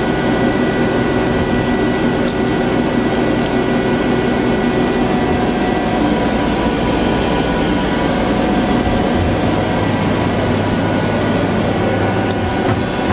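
Hurco TMX8 CNC lathe powered up and running: a steady machine hum with a few fixed whining tones above it. A deeper hum joins about nine seconds in.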